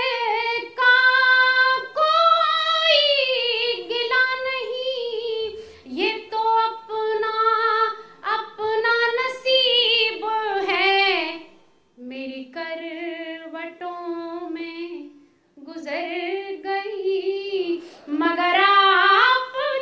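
A woman singing an Urdu ghazal couplet unaccompanied, in the melodic tarannum style of mushaira recitation. Her long, held and sliding phrases are broken by short pauses for breath, three times.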